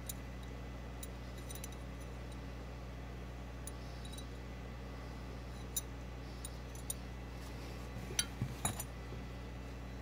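Brass belt buckles lightly clicking and clinking against one another as they are handled, a few scattered knocks with a closer run of louder clinks near the end, over a steady low hum.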